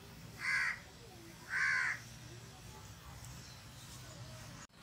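A bird calling twice: two short calls about a second apart, then only faint background.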